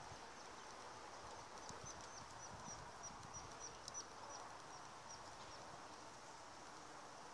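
Faint open-air background hiss with a small animal's short, high chirps repeating about three times a second.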